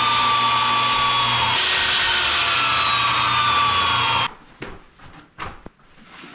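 Portable jobsite table saw ripping strips from an old 1x barn-wood board, a loud steady cutting noise whose whine sags slightly under load. It stops abruptly about four seconds in, leaving a few light knocks and thuds.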